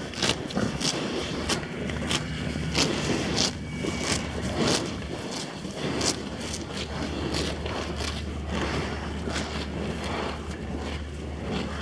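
Holstein-Friesian dairy cows grazing close by, tearing off mouthfuls of grass: a string of crisp ripping crunches, irregular, about one or two a second.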